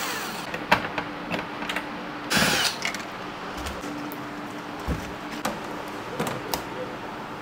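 Cordless drill-driver backing screws out of an LED TV's rear cover, winding down at the start with another short run about two seconds in. Scattered clicks and knocks follow as the plastic back cover and panel are handled.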